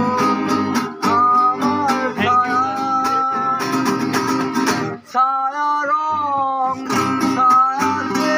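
Two acoustic guitars strummed while a man sings a melody over them. About five seconds in the strumming thins out for a couple of seconds while the voice carries on, then the full strumming returns.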